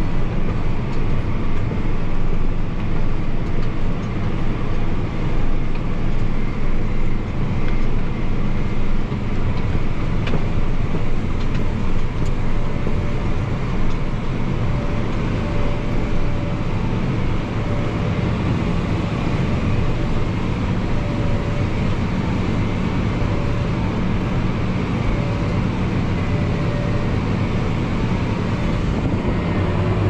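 Tractor's diesel engine running steadily under load, heard from inside its cab, with a faint on-and-off whine through the second half.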